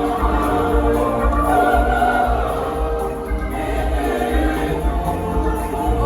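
Choir singing over instrumental backing with a steady pulsing bass beat.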